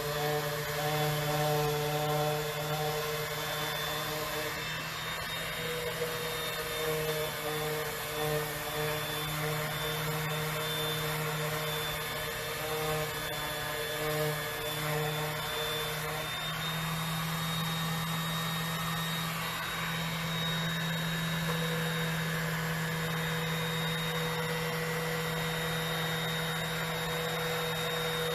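Electric sander running on cherry wood, a steady motor hum with the rasp of abrasive on the board; the hum's pitch shifts slightly now and then as it is moved and pressed.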